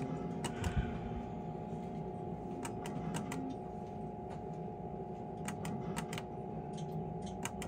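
A skill game machine being played: short clusters of sharp clicks, about three or four at a time, come a few times over a steady electronic hum and room noise.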